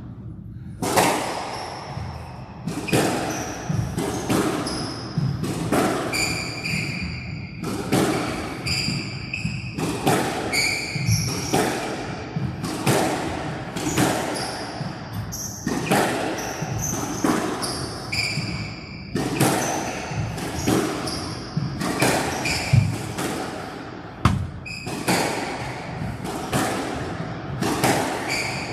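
A squash rally beginning about a second in: sharp cracks of the ball off racquets and walls about once a second, with short high squeaks of players' shoes on the court floor between shots.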